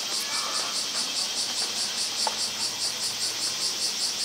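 Cicadas singing in a steady, high-pitched chorus that pulses about six times a second.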